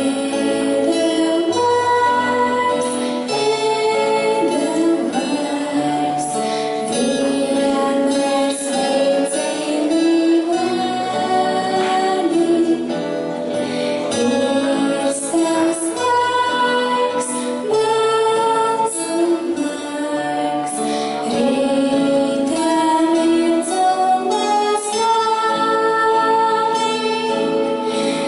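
A girl singing a melody into a handheld microphone over instrumental backing music with a steady beat.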